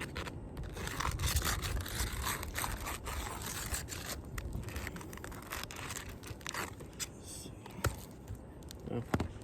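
An old ELK Raised Profile asphalt shingle being worked loose: irregular scraping, crunching and crackling of the stiff shingle, busiest in the first few seconds, with a couple of sharp knocks near the end. The shingle is brittle and cracks off as it is lifted.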